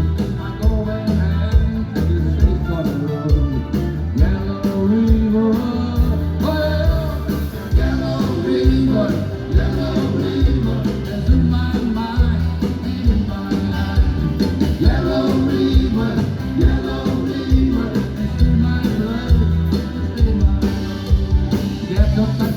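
A live band plays an upbeat rock-and-roll song, with drums, bass and guitar keeping a steady, driving beat.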